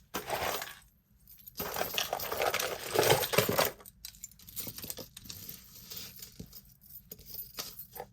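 Metal bangle bracelets clinking and jangling against each other as they are handled, busiest over the first four seconds, then lighter scattered clicks.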